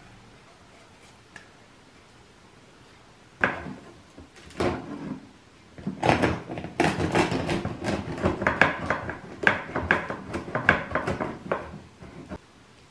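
A knife sawing through a crusty baguette on a slatted wooden bread board, with crackling crust and the blade knocking the wood. A sharp knock comes a few seconds in, then a run of fast crunchy sawing strokes lasts about five seconds before it goes quiet.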